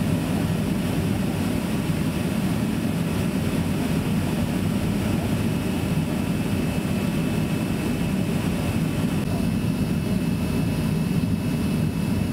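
Steady in-flight cabin noise of a Boeing 707-329C, heard from inside the cabin: a constant low rush of airflow and its Pratt & Whitney JT3D-7D turbofan engines running, with a faint steady high whine.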